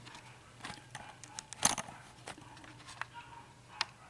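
Light, scattered clicks and taps of small padlock pins and spools being moved about and handled, with one sharper click about one and a half seconds in.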